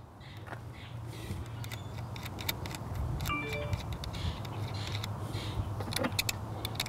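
Small metal clicks and ticks of nuts and cable ends being handled at a camper battery's terminal posts, over a low steady rumble.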